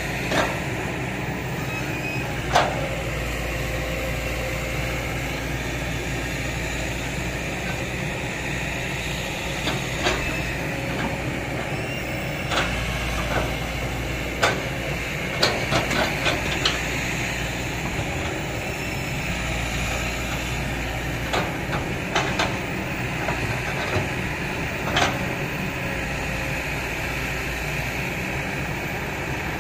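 Kobelco hydraulic excavator running steadily under load as it digs and pushes soil, with scattered sharp knocks and clanks from the bucket and boom, several in quick succession around the middle.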